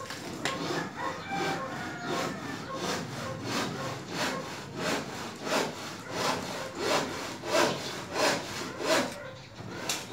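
Rhythmic back-and-forth scraping strokes, about two a second, in a steady even pattern.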